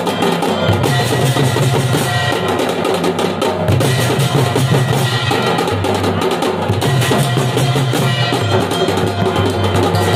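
Sambalpuri folk drum ensemble playing a dense, steady rhythm: a large stick-beaten dhol together with small laced kettle drums on stands.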